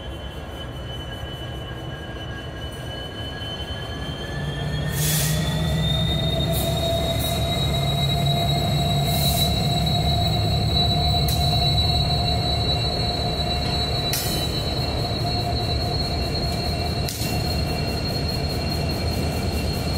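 Norfolk Southern diesel-electric locomotives rolling slowly past at close range: a low engine rumble that grows louder about five seconds in, steady high-pitched squealing tones that climb in pitch at that point and then hold, and a handful of sharp clacks scattered through.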